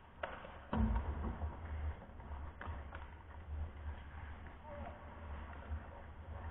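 Ice hockey rink sounds: a few sharp clacks of sticks and puck over a low rumble, the loudest a knock with a thud about three-quarters of a second in.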